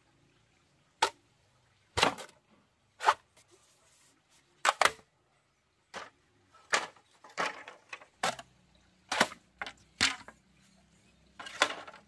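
About a dozen sharp knocks of a tool striking bamboo, irregularly spaced, some coming in quick pairs.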